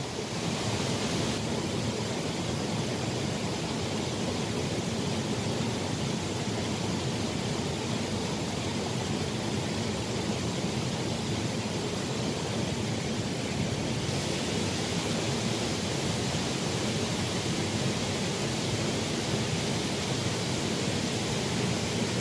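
Small rocky stream flowing, a steady rushing of water.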